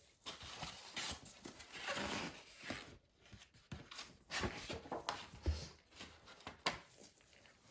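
Irregular light clicks, taps and short scrapes as small parts and a hand tool are worked inside an opened MacBook Pro.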